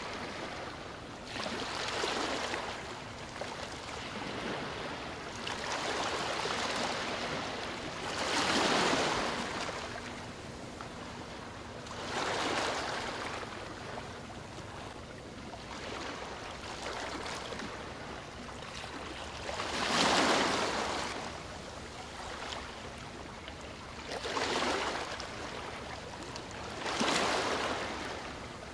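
Small waves washing onto the river shore: about seven swells of rushing water a few seconds apart over a steady hiss, with a faint low hum underneath.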